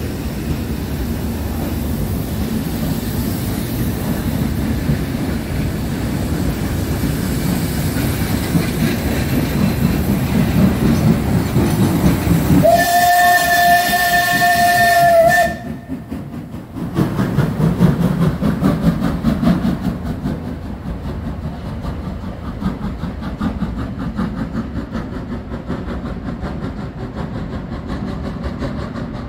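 Steam train running, with a steady rumble and rail clatter. About halfway through, a steam locomotive whistle gives one steady blast of about three seconds, which cuts off suddenly. After a short pause the train rumble comes back, duller than before.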